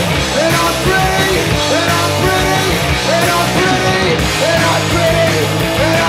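A punk rock band playing live: electric guitar and drums, with a riff of sliding notes repeating about every second and a half.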